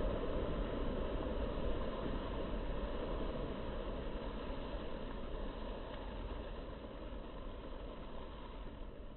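Sea waves breaking and washing over a rock breakwater: a steady, deep rushing noise that slowly fades toward the end.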